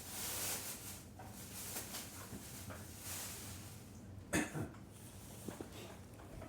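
A cat coughing wetly: a breathy huff at the start, a few short coughs, and the loudest pair of coughs about four and a half seconds in. The owner takes it for a hairball she is trying to bring up.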